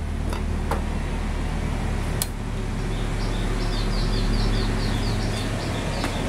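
A steady low hum with a few sharp clicks in the first couple of seconds. About halfway in, a bird starts a quick run of short, high, falling chirps, about three a second.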